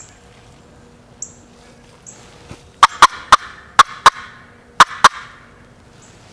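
A turkey call cutting: seven sharp, loud clucks in a quick, uneven run about three seconds in, used to try to draw a gobble from a tom.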